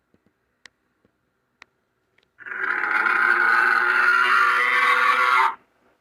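Diplodocus sound effect: one long creature call, about three seconds, starting about two and a half seconds in and cutting off abruptly. A few faint clicks come before it.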